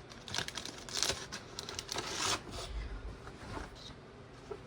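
Packaging being handled: irregular crinkling and rustling swishes with a few small clicks, the longest swish about two seconds in.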